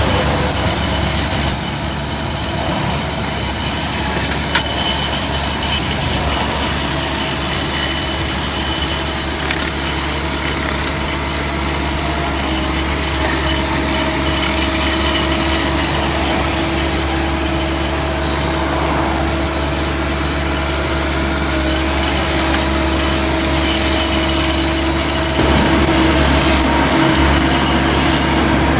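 Multihog tool carrier's engine running steadily while it drives the Mulag cable-barrier mower's flail head and post trimmer: a continuous machine hum with a constant whine over a low rumble. A single sharp click comes about four and a half seconds in, and the sound gets a little louder near the end.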